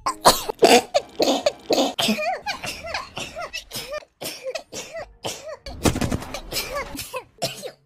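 A rapid string of sneezes in high-pitched young women's voices, one short burst after another, some with a squeaky voiced tail. A stronger, noisier sneeze comes about six seconds in.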